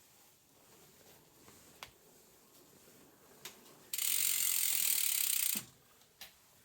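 Drivetrain of a bike with a Pinion gearbox, freewheeling: a fast, steady ratcheting buzz lasting about a second and a half that cuts off suddenly, with a few faint clicks before it.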